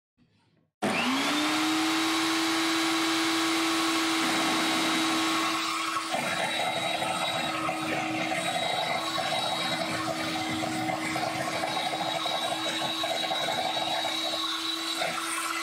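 Mini hobby table saw switched on about a second in, its motor whine rising quickly to a steady pitch. From about six seconds in, its blade cuts into a thin wooden dowel, adding a rougher sawing noise over the whine.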